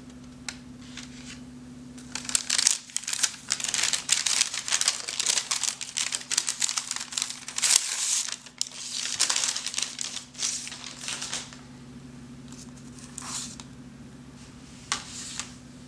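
Paper wrapping, an orange paper bag and thin tissue paper, crinkling and rustling as it is unfolded and pulled off a biscuit: dense rustling for most of the first ten seconds, then a few brief rustles near the end, over a steady low hum.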